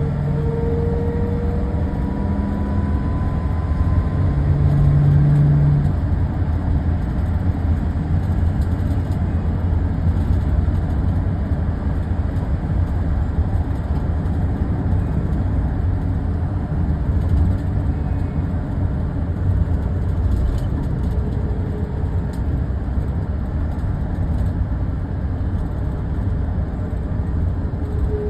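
Steady road and engine noise inside a moving car, a continuous low rumble with faint whining tones that come and go.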